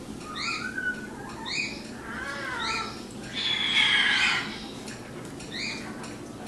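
Pet raccoon chirping and squealing in play: a run of short, high rising chirps and wavering squeals, with one louder warbling squeal about three and a half seconds in.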